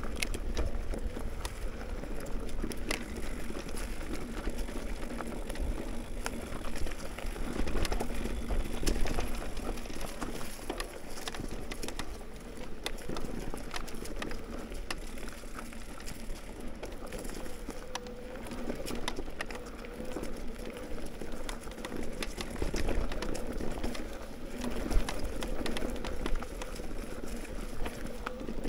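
Mountain bike riding over a rough dirt trail: a steady rush of tyre noise with frequent clatter and rattles from the bike as it goes over bumps.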